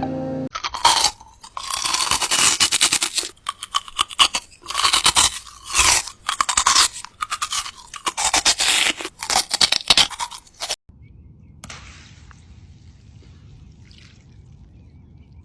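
Repeated crunching and scraping strokes in uneven clusters for about ten seconds, then a sudden cut to a faint low hum.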